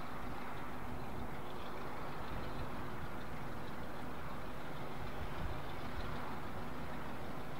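Steady rumble of a train running, even in level, with a faint low hum.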